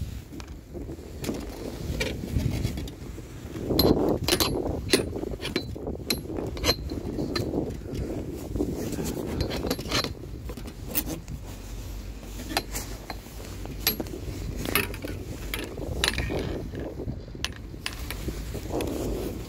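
Fixed-grip quad chairlift in motion: irregular metallic clicks and clanks from the haul rope and chair running over the tower sheaves, over a low rumbling rush. The clatter is loudest about four seconds in.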